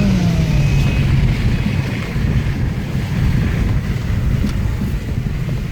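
2008 Subaru Impreza WRX's turbocharged flat-four engine heard from inside the cabin as the car drives on a slushy backroad, its pitch dropping at the start and then running steadily under a heavy rumble of tyre and road noise.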